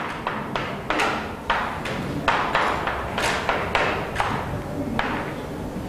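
Chalk writing on a blackboard: a quick run of short taps and scratches, one for each stroke of the chalk.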